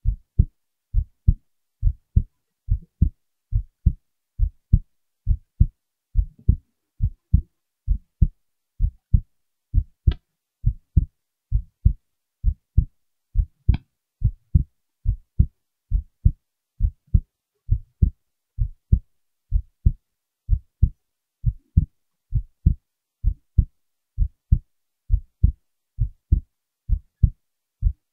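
Heartbeat: low thumps in a steady, even rhythm, about two a second.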